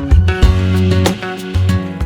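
Background pop music: strummed acoustic guitar over bass notes, with no singing.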